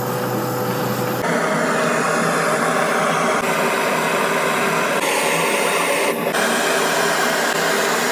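Loud, steady noise of running industrial machinery, with no clear rhythm, changing abruptly in character about a second in and again around five and six seconds in.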